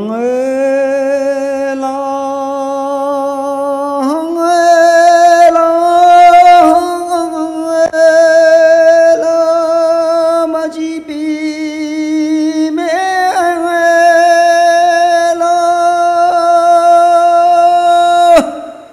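A man singing alone into a microphone, unaccompanied: a slow song in long held notes. The pitch steps up a few seconds in, dips and rises again later, and the last note stops shortly before the end.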